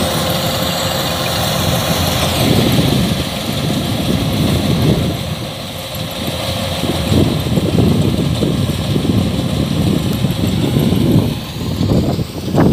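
Kubota combine harvester's diesel engine running steadily as the machine works a rice field, a continuous loud drone with a steady whine over it.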